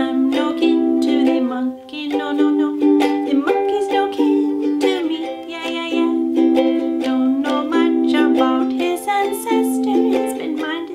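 A woman singing while strumming chords on a ukulele.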